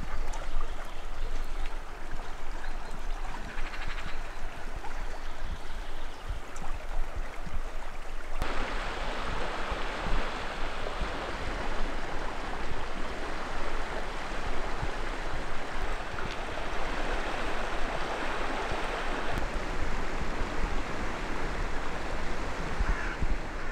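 Fast-flowing water of a river swollen by spring flood, a steady rushing hiss. About eight seconds in the sound changes abruptly to a fuller, brighter rush of faster water.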